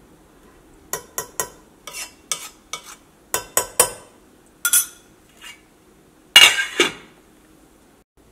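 A steel spoon clinks against a metal saucepan in a series of quick taps. Near the end comes a louder ringing clatter as the pot's metal lid is set on.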